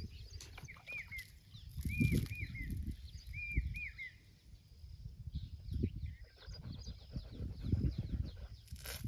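Birds calling, one repeating an arched whistled note in twos and threes, with scattered higher chirps from others, over a low, uneven rumble.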